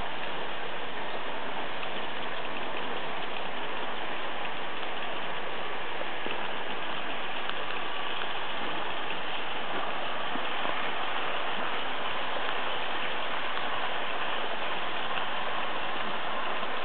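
H0-scale model trains running on Märklin track: a steady rolling noise of small metal wheels on the rails and the locomotives' electric motors.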